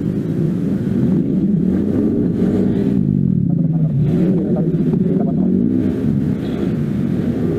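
Motorcycle engine running under way, its pitch dipping about halfway through and rising again as the speed changes.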